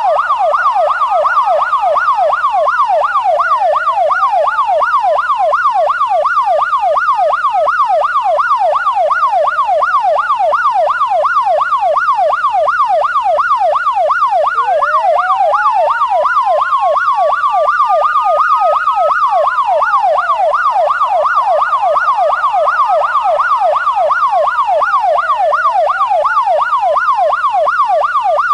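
Sirens sounding together: a fast yelp sweeping up and down several times a second, with a slower wail that climbs over a few seconds and then drops, again and again.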